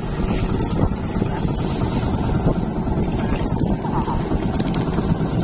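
Steady low rumble of wind buffeting the microphone over a small motorized fishing boat at sea, with a few faint knocks as the wet nylon net is hauled aboard.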